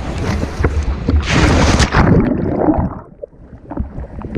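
A person jumps from a boat into the sea: wind buffets the camera microphone, then there is a loud splash about a second and a half in. After it comes dull, muffled gurgling as the camera goes under the water.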